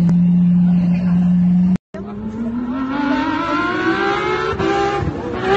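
A steady droning tone cuts off abruptly just under two seconds in. Then a sports car's engine accelerates hard toward the listener, its pitch rising steadily for about three seconds.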